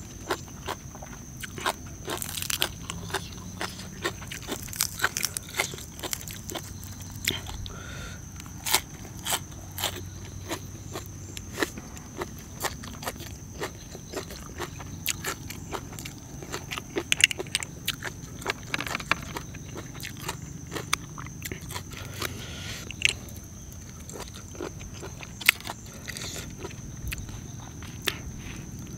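A person eating close to the microphone: irregular crisp crunching bites and chewing, with sharp crunches coming in quick clusters at times. A faint, steady high-pitched whine runs behind.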